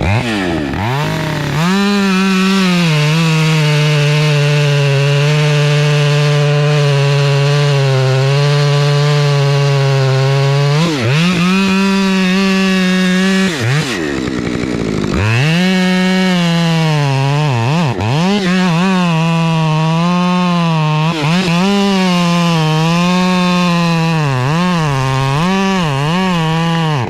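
Husqvarna chainsaw running at high revs and cutting wood. The engine note drops and climbs back several times, and in the last few seconds it wavers quickly up and down as the throttle is eased and reapplied.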